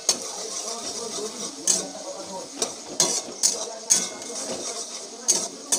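A spatula stirring onions, tomato and ginger paste in a metal kadai over a steady sizzle of frying, knocking and scraping against the pan about eight times at irregular intervals as the masala is fried.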